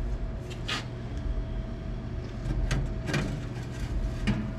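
Exhaust pipe sections being worked into place, with a few short metallic knocks and scrapes over a steady low hum.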